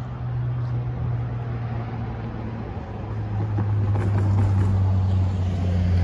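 Road traffic driving across the railroad crossing, with a steady low engine hum. A large SUV passes close about three seconds in, and the sound grows louder.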